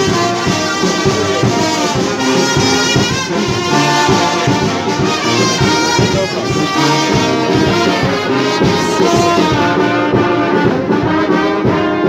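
Brass band playing a tune, a steady ensemble of sustained brass notes.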